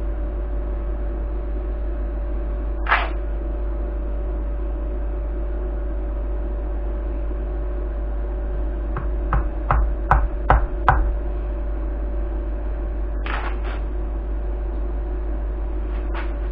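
Hammer strikes on a center punch set on the top of a forklift battery cell's terminal posts, marking them for drilling out: one strike about three seconds in, a quick run of six or seven around the middle, and a few more near the end. A steady motor hum runs underneath.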